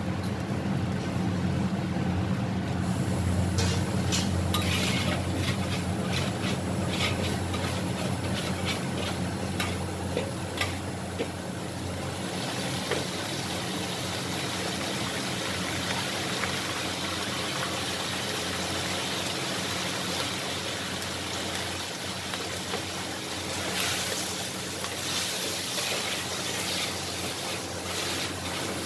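Flat rice noodles stir-fried in a carbon-steel wok over a steady low hum: a metal spatula scrapes and clanks against the wok for the first ten seconds or so, then a continuous sizzle takes over and grows louder near the end as the wok is tossed.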